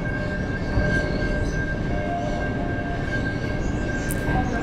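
Adelaide Metro electric train, a steady high-pitched whine over a continuous rumble.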